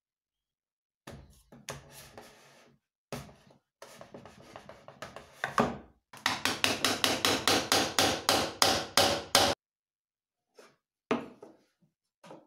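Repeated knocks on wood from handwork on a wooden block: irregular knocks and scraping at first, then a loud, even run of sharp strikes at about four a second for roughly three seconds, stopping suddenly, followed by a few scattered knocks.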